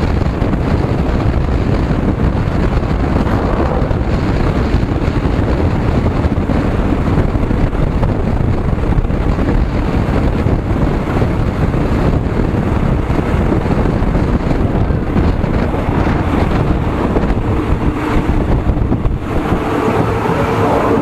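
Loud wind buffeting the microphone over the steady rumble of a moving vehicle. Near the end the rushing eases and a steady hum comes through.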